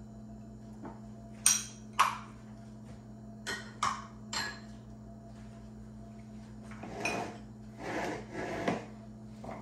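Small glass prep bowls knocking and clinking against a wooden countertop and the mixing bowl: two sharp knocks about one and a half seconds in, a few lighter ones soon after, then softer scraping and rustling as bowls are shifted. A steady low hum runs underneath.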